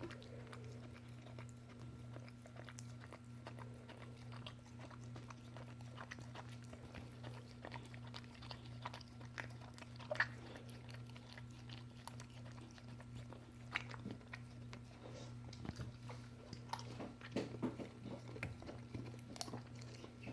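A dog chewing and licking peanut butter: irregular sticky smacks and clicks of its mouth, busier near the end, over a steady low hum.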